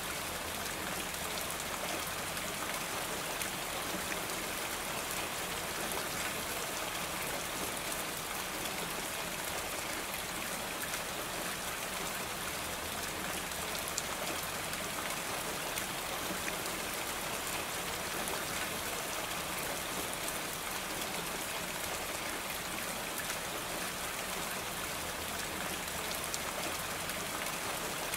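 Steady rain falling on a roof: an even hiss of many fine drops pattering, with no change in strength.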